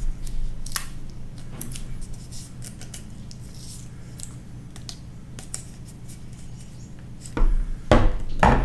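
Hands handling a metal halo antenna and electrical tape at its mounting bracket: scattered small clicks and scrapes, then a few louder knocks near the end as the aluminium antenna is set down on a wooden desk. A steady low hum runs underneath.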